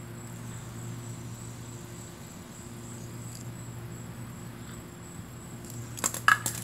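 Steady low hum with a thin high whine, broken about six seconds in by a quick cluster of sharp knocks and clatters from a fidget spinner being dropped.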